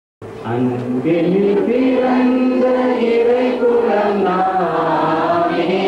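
Voices singing a slow hymn with long held notes, starting abruptly a fraction of a second in after silence.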